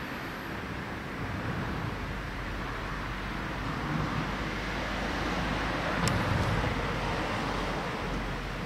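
Road traffic noise, a steady rush that swells as a vehicle passes about six seconds in, with one brief click near the loudest point.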